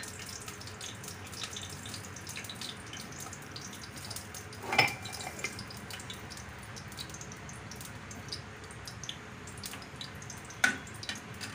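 Hot melted ghee crackling and spitting softly in an aluminium pan, many small pops over a steady low sizzle. A louder clink about five seconds in and a short sharp knock near the end, the metal spoon against the pan.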